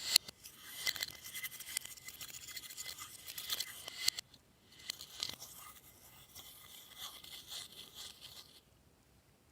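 Glossy slime being squished and stretched by hand, making a dense run of small sticky clicks and crackles. It stops briefly about four seconds in, then starts again and fades out near the end.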